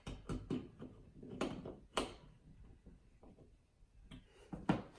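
Scattered light clicks and taps of plastic electrical fittings being handled, the sharpest click about two seconds in and two more near the end.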